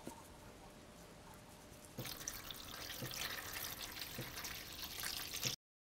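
Water poured from a plastic measuring jug into a baking pan of cabbage rolls, splashing steadily. It starts suddenly about two seconds in and cuts off abruptly just before the end.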